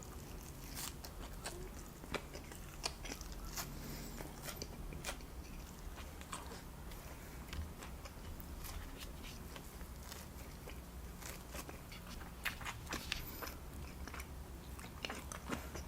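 Close-miked chewing and biting of chicken tandoori, with many small, irregular wet clicks over a low steady hum.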